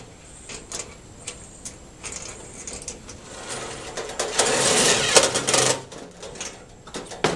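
Small metal clicks and handling on a galvanized steel trash can as a washer-and-nut is fitted to a quarter-inch bolt through its wall, with a dense burst of metallic rattling about four seconds in, lasting over a second, as the nut is run down.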